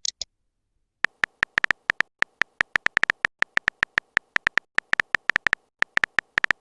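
A rapid, uneven string of short electronic beeps, all at the same pitch, starting about a second in, with a brief high chirp just before.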